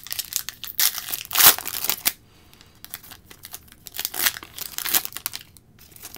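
A trading card pack's wrapper being torn open and crinkled in the hands, loudest in the first two seconds, then softer rustling and crinkles around four to five seconds in.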